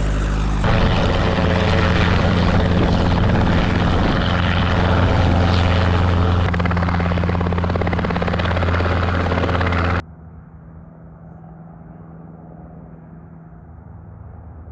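Helicopter running close by, a loud steady hum of rotor and engine. About ten seconds in it drops suddenly to a much quieter, duller rumble.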